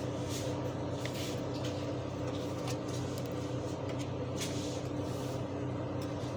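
Steady machine hum with a few faint clicks and knocks over it.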